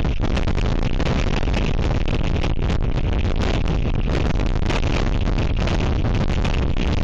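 Gale-force wind battering an outdoor camera microphone: a loud, steady rush of noise, heaviest in the lows, with constant crackling buffets.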